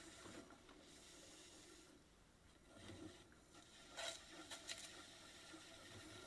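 Faint scraping of a metal trimming tool against clay as a plate's underside is trimmed on a pottery wheel, with a few short, slightly louder scrapes about four seconds in.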